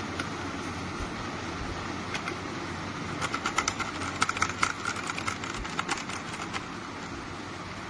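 Typing on a Redragon K617 60% mechanical keyboard: a quick, irregular flurry of key clicks starting about three seconds in and lasting a few seconds, over a steady background hum.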